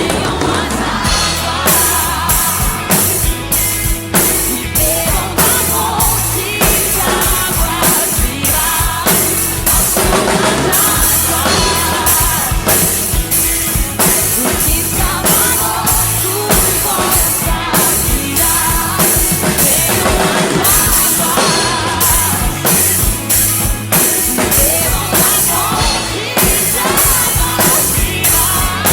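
Drum kit played along with a recorded worship song: bass drum, snare and cymbals keep a steady beat over the band's track.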